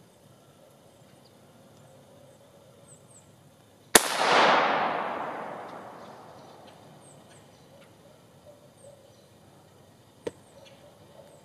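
A single .17 HMR rifle shot about four seconds in: a sharp crack followed by a long echo through the woods that fades over about two seconds. A smaller sharp click comes about six seconds later, with faint small-bird chirps.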